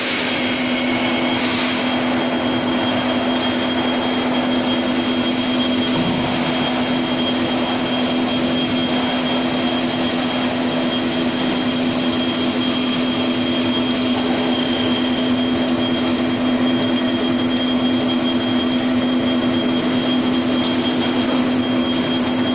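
Screw oil expeller running under load while pressing sunflower seeds: a steady machine drone with a constant low hum and a thin high whine.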